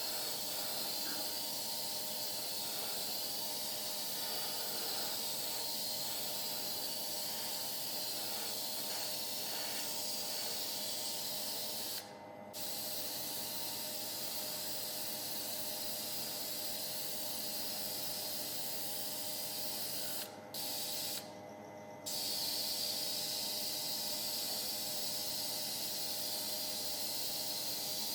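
Steady hiss of a compressed-air spray, cutting out briefly twice, over a steady hum that continues through the pauses.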